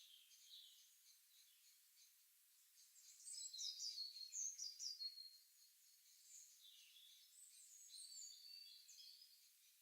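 Songbirds chirping and singing, faint, in a busy mix of short high chirps and trills. A louder flurry of quick chirps comes a few seconds in, and another toward the end.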